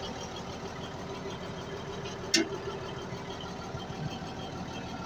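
Heavy-equipment diesel engine running steadily at idle, heard close up at its fuel injection lines, with one sharp click a little over two seconds in. The engine is one with a starting problem.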